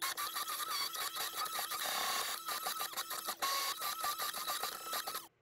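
An olive oil, lemon and salt dressing being beaten: a steady whir with a fast, rattling run of clicks, stopping abruptly near the end.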